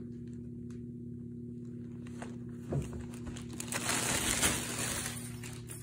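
Fabric pet tunnel rustling loudly for about two seconds as it is shifted with a red fox moving inside it, after a soft thump a little before.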